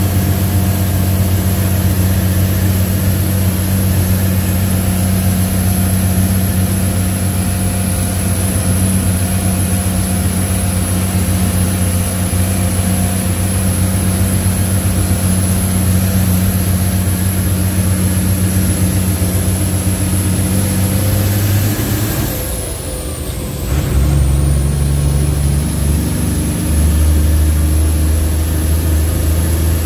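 Leyland truck's 411 diesel engine running steadily under way, heard from inside the cab. About three-quarters of the way through the engine note dips for a moment and comes back at a lower pitch, as with a shift up through the six-speed gearbox, then rises again.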